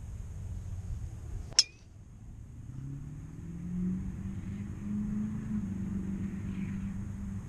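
Golf driver striking a teed-up ball: one sharp, high metallic crack about one and a half seconds in. After it a low motor hum rises a little in pitch and holds steady.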